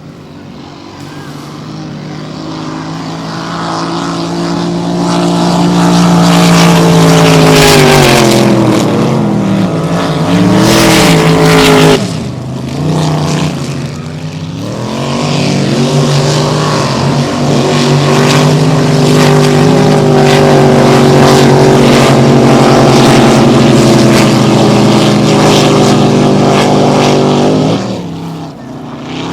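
Race boat engine running hard at high revs, growing louder over the first several seconds. Its pitch drops and wavers for a few seconds about a third of the way in, then climbs back and holds steady until it dies away near the end.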